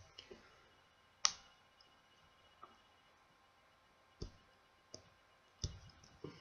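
Scattered small clicks and taps of a tool and fingers on a smartphone's plastic housing while it is being pried apart, about seven in all, the sharpest about a second in.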